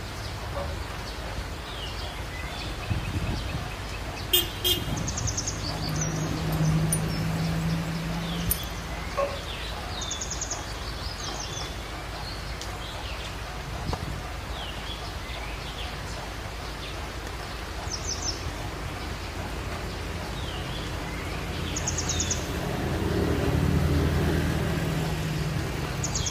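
Birds chirping in short, repeated calls over a steady low outdoor rumble. A motor vehicle's engine hums past about six seconds in, and again, louder, near the end.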